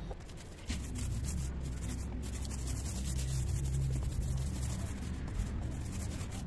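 Paint roller loaded with white paint rubbing over a rough concrete wall: a steady rasping scrub that starts under a second in and carries on over a low rumble.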